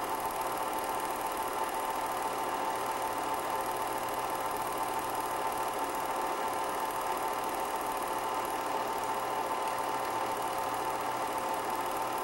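Film projector running with a steady mechanical whir and a constant hum that holds unchanged through every picture cut.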